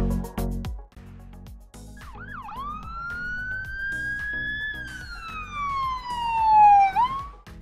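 Intro music with a steady beat, overlaid from about two seconds in by a single siren wail that rises, holds, then slowly falls and swoops back up near the end, loudest at the bottom of the fall.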